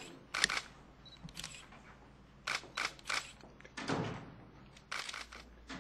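Press photographers' camera shutters clicking at irregular intervals, some in quick pairs, over low room noise.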